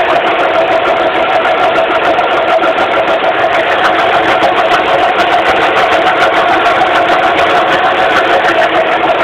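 2006 Suzuki Forenza engine running under the open hood with a loud, steady hum of clear pitch, a sign of a failing power steering pump according to the owner.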